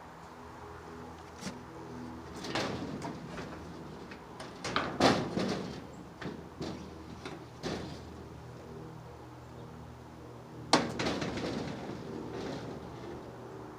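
Several knocks and rustling scrapes, the sharpest knocks about 5 seconds in and again near 11 seconds, over a faint low hum.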